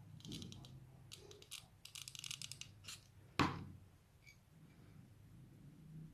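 Small handling sounds of paper-craft work: a run of crackly rustles and clicks for about three seconds as the quilled paper flower and craft pieces are handled, then one sharp knock about three and a half seconds in.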